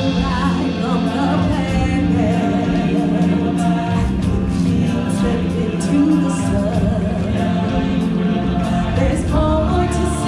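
Stage-show music: a choir singing with musical accompaniment, steady and unbroken.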